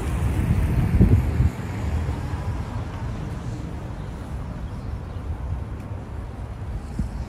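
City street ambience: a low rumble of traffic and wind on the microphone, heaviest for the first second and a half, then steady and a little quieter.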